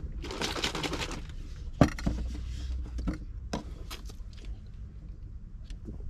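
Plastic shaker-style drink bottle being handled: a short burst of rattling noise near the start, then a sharp plastic click as the lid goes on, and a few lighter clicks and taps.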